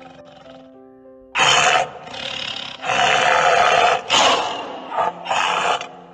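Tiger roaring in four loud bursts, the longest a little over a second, over background music playing steady notes.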